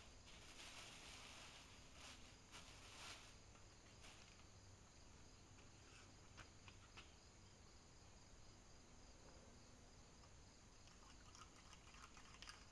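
Faint rustling of plastic sheeting for the first three seconds or so, then near silence with a few light clicks from clay pots being handled.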